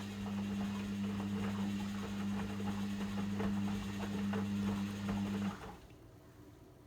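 Logik L712WM23 washing machine running with a steady low hum and irregular light rattling, which cuts off suddenly about five and a half seconds in.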